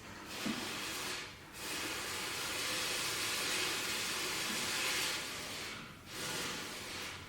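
Hissing in three spells: about a second of it, then a longer one of about four seconds, then a short one near the end.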